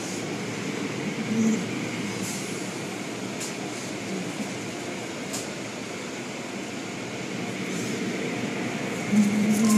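Automatic car wash cloth strips and water sweeping over the car, heard from inside the cabin as a steady rushing swish.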